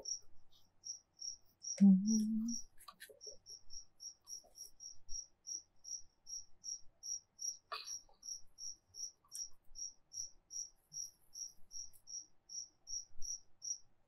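A cricket chirping steadily, a little over two short chirps a second, all at one high pitch. A short low hum about two seconds in and a single tap near eight seconds stand out over it.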